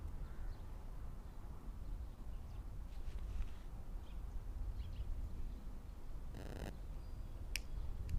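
Wind rumbling on the microphone with faint scattered clicks. About six and a half seconds in, a short rattling burst from a lighter's spark wheel being flicked at a firecracker fuse, then a sharp click about a second later.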